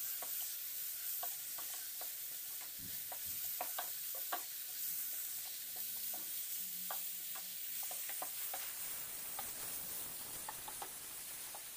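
Cauliflower florets and onion sizzling in a non-stick frying pan as a wooden spatula stirs them, with frequent short scrapes and taps of the spatula against the pan over a steady sizzle.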